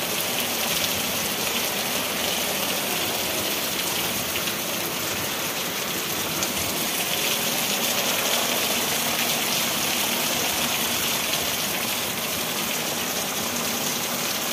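Heavy rain pouring down steadily, with water streaming off a roof edge.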